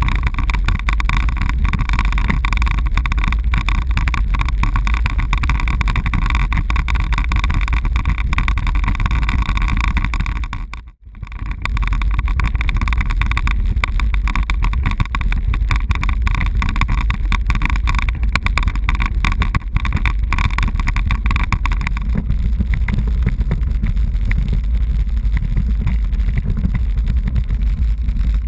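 Road bicycle riding over cobblestones: a constant hard, fast rattle of the bike and camera shaking on the setts, mixed with wind on the microphone. The sound drops out briefly about a third of the way in, and the high rattle eases somewhat in the last third.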